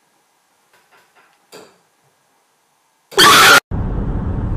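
Near quiet with a few faint small sounds, then about three seconds in a short, very loud burst of sound. It is followed by a steady low rumble inside a car.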